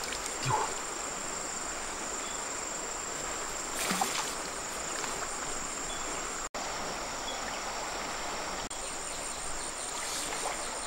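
Shallow river water running steadily, with insects keeping up a continuous high-pitched drone over it.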